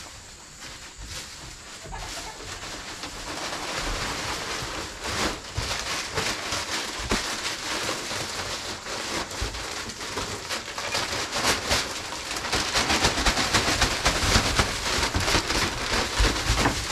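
Dry chicken-coop bedding being shoveled and scraped: a dense crackling rustle of many small scrapes, growing louder about two seconds in.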